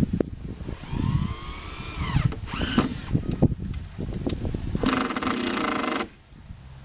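Cordless drill driving screws into the wooden frame. One run about a second in falls in pitch toward its end, a short burst follows, and a second steady run near the end cuts off suddenly, with knocks of handling between the runs.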